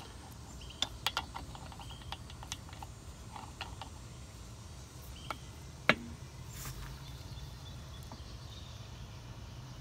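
Irregular metal clicks and taps of an adjustable wrench working a metal elbow pipe fitting as it is tightened into a hydraulic cylinder port, with one sharper clack about six seconds in.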